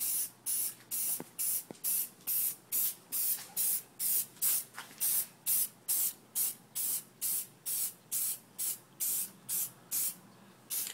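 Aerosol can of high-heat red enamel paint hissing in short, rapid bursts, about two or three a second, laying a light coat onto brake calipers; the bursts stop for about a second near the end.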